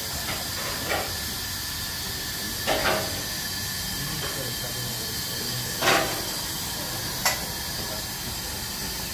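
Steady hiss of steam escaping from a 1-inch-scale (1:12) live steam locomotive, broken by four brief, louder bursts of hiss. The loudest burst comes about six seconds in.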